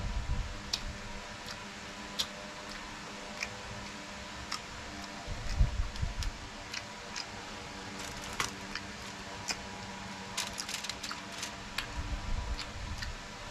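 Close-miked eating of raw oysters: scattered wet clicks and smacks, with a few low thuds, over a steady low hum.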